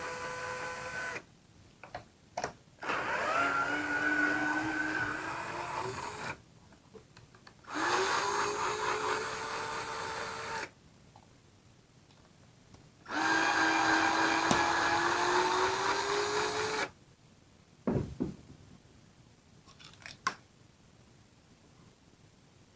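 Power drill backing screws out of an RC truck's chassis plate, running in four bursts of a few seconds each, its motor whine rising slightly in pitch during each run. A few light clicks near the end.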